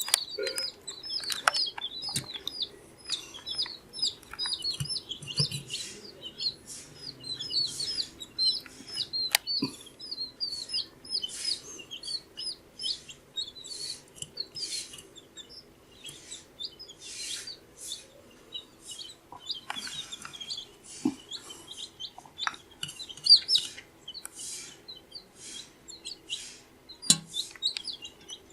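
A group of two-week-old baby chicks peeping continuously, many short high chirps overlapping, with a few sharp taps among them.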